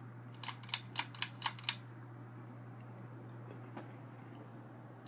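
Hunter Biarritz ceiling fan running on high speed, its motor giving a steady low hum. About half a second in comes a quick run of six or so sharp clicks.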